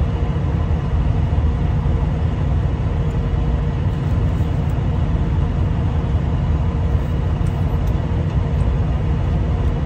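Steady low rumble of an idling vehicle engine, with a few faint steady tones above it.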